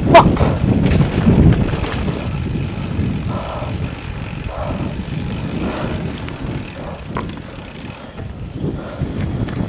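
Mountain bike clattering and rattling down a rocky trail, with a sharp knock right at the start as the loudest sound and a few more clicks after it. The noise dies down near the end as the bike comes to a stop.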